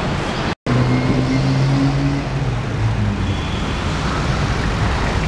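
Busy city street traffic: engines of cars and vans running close by, with a steady low engine hum for a second or two after a split-second dropout just under a second in.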